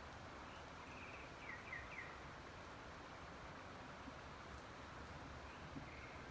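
Faint, steady hiss of rain with a small bird chirping: a short buzzy note and three quick descending chirps about a second in, and one more short note near the end.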